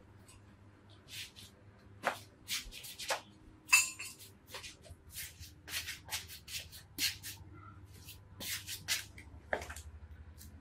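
Hands rubbing a chili-garlic spice mix into a raw fish and handling plates and plastic containers: an irregular run of short rustling, scraping strokes, with one sharper clink about four seconds in, over a faint low hum.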